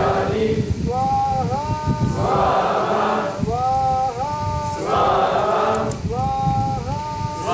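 Devotional call-and-response chanting: a single lead voice sings a short phrase and a group of voices answers, in turns about every second.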